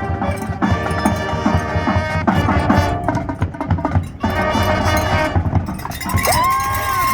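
Marching band playing: held brass chords over frequent drum hits, then sliding tones that rise and fall near the end.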